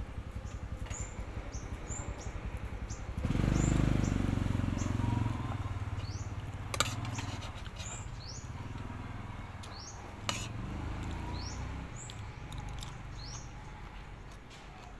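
Small birds chirping, many short rising calls repeated throughout. A loud low rumble sets in about three seconds in and fades away over several seconds, with two sharp clicks along the way.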